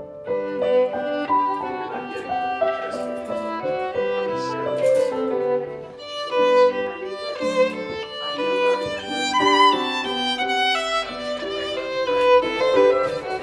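Background music led by a violin playing a melody, with a string accompaniment.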